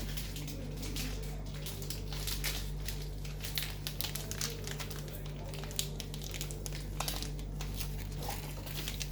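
Crinkling and rustling of packaging as toys and items are handled and sorted, with irregular quick rustles and small clicks throughout, over a steady low electrical hum.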